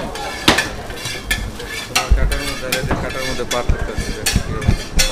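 Kitchen clatter of metal utensils and cookware: a quick, irregular run of sharp clicks and clinks, with a few dull knocks about two seconds in.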